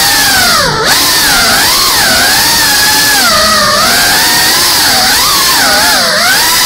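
FPV quadcopter's brushless motors and propellers whining over a rushing hiss, the pitch constantly rising and falling as the throttle changes. The pitch drops sharply for a moment just under a second in, then climbs again.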